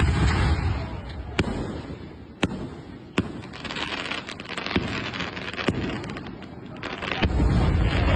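Fireworks going off: a few single sharp bangs about a second apart, then a stretch of dense crackling with more bangs mixed in. A steady low rumble comes in near the end.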